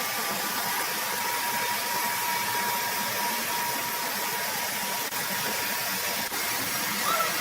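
Sawmill machinery running steadily: an even hissing machine noise with a faint thin whine that fades out partway through.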